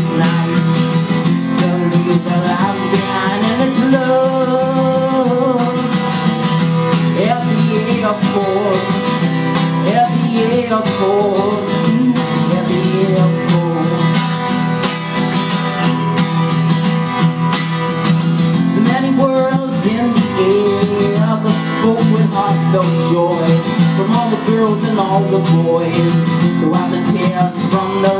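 Steel-string acoustic guitar strummed steadily, with a man singing over it into a microphone, heard live in a small room.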